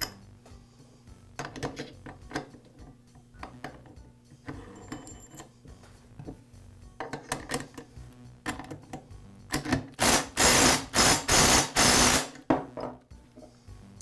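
Light metal clicks and clinks as the washer and clutch are fitted onto a Poulan chainsaw crankshaft, then, about ten seconds in, a loud rapid rattling in a few short bursts lasting about two and a half seconds: an impact driver running the clutch tight.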